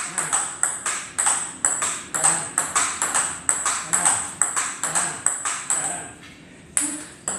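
Table tennis rally: the ping-pong ball clicks off the table and the rubber paddles in turn, about two or three hits a second. Play breaks off briefly about six seconds in, then the clicks start again.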